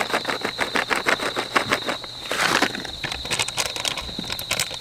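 A cat crunching dry cat treats: a quick run of crisp clicks, with a crinkle of the treat bag about halfway through. Crickets trill steadily throughout.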